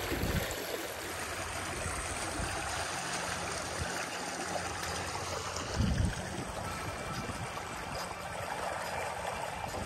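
Water rushing and splashing past the hull and rudder of a Hobie 16 catamaran under sail: a steady hiss, with a brief low buffet of wind on the microphone about six seconds in.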